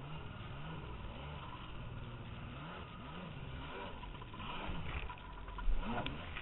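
Jet ski engine revving up and down in quick repeated surges as the craft runs through surf, over a steady rush of water. Near the end a wave breaks over the bow with a loud splash.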